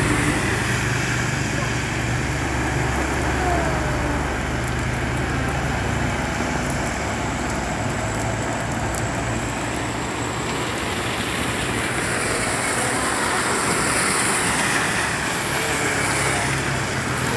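Road traffic on a rain-soaked, flooding road: a truck's engine rumbles past at the start, then cars and motorbikes go by with their tyres hissing through the water, over a steady hiss of rain.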